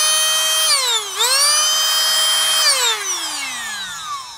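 Canless Air O2 Hurricane electric air duster's fan motor running at full speed with a high whine. Its pitch dips and climbs back to speed about a second in, then it winds down, falling in pitch, near the end.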